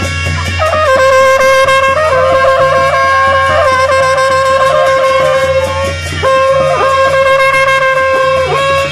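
Traditional Nepali naumati baja band playing: shehnai reed pipes carry a held, ornamented melody over the long karnal horns and a stick-beaten drum. The melody breaks off briefly about six seconds in, then resumes.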